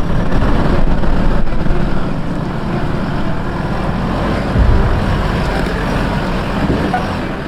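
Toyota GD-6 turbodiesel 4x4 engine running under load as it climbs a rocky incline, with wind on the microphone; the sound swells briefly about four and a half seconds in.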